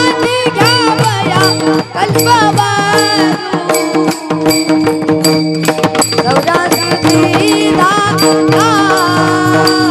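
Marathi Warkari devotional bhajan: a boy's voice singing long, sliding melodic phrases over a steady held drone, with drum and cymbal strokes keeping time.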